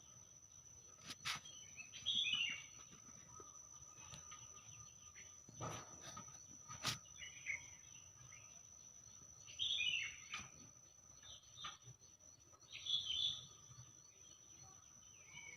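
Small birds chirping in short bursts every few seconds over a steady high tone, with a few sharp clicks or knocks in between.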